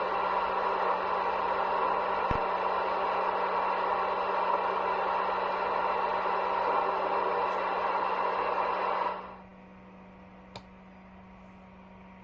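CB radio receiver giving out steady static hiss from the speaker, which cuts off sharply about nine seconds in. After that only a faint hiss and a low steady hum are left, with a single click near the end.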